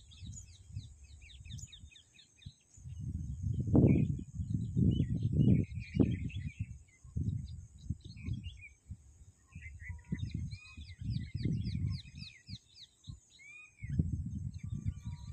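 Many small birds chirping throughout, under irregular low rumbling gusts of wind on the microphone, which are the loudest sound.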